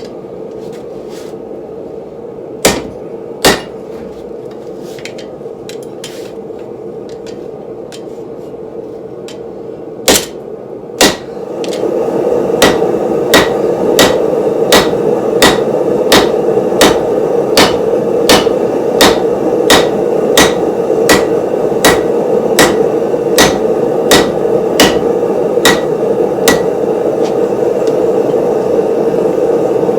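Hand hammer forging steel for a cleaver blade: a few separate ringing blows, then a steady run of blows about three every two seconds from about 12 s to 26 s. A steady rushing noise underlies it all and gets louder at about 12 s.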